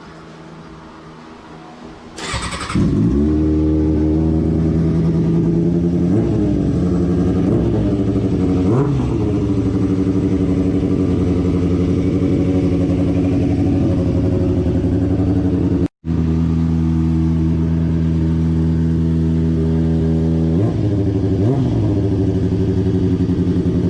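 Liquid-cooled motorcycle engine starting for the first time after a rebuild: the starter cranks and it catches about two seconds in, then runs steadily at idle with a few short blips of the throttle.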